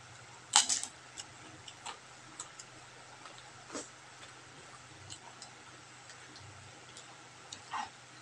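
People eating by hand, close to the microphone: chewing and lip-smacking heard as scattered soft clicks, with a louder cluster of sharp, crackly clicks about half a second in and a couple more later.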